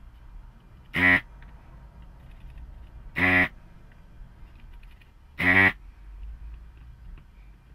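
Electric desoldering gun's vacuum pump buzzing in three short bursts about two seconds apart, each one sucking molten solder out of a solenoid pin on the ABS module's circuit board.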